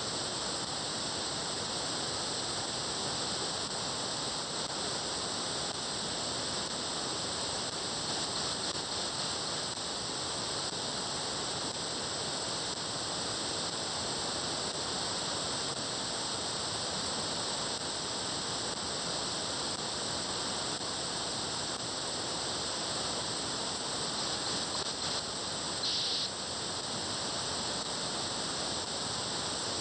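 Steady static hiss from a shortwave-style SDR receiver in upper-sideband mode, tuned to the 70 cm amateur band while tracking a satellite, with no clear signal copied. About 26 seconds in there is a brief, slightly higher burst in the hiss.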